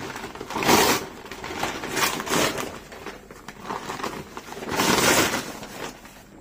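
Brown kraft paper packaging rustling and crumpling as hands pull it away from a cardboard box, in irregular bursts.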